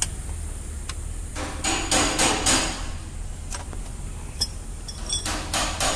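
Ratchet wrench working a gearbox-to-engine bolt: scattered sharp metal clicks, then a quick, even run of clicks at about four a second near the end.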